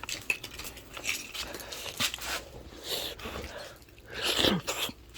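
Scattered light clinks and knocks of roasted oyster shells being handled and pried open.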